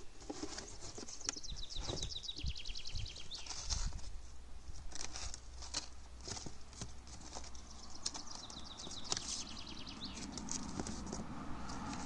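Small zip-lock plastic parts bags crinkling and rustling as they are handled, with light knocks and scrapes against foam and cardboard. Twice there is a fast run of even clicks. A low steady rumble underlies the second half.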